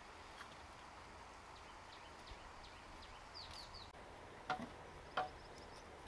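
Two sharp, hollow knocks of bamboo poles striking the bamboo frame, under a second apart near the end, over faint outdoor background with a few short bird chirps just before.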